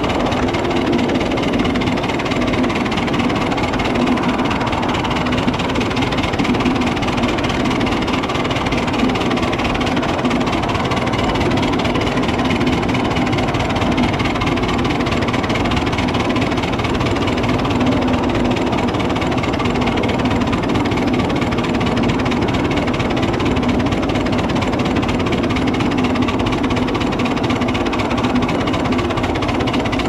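Live-steam miniature locomotive and its train running steadily along the track, a continuous mechanical running noise of the engine and wheels on the rails.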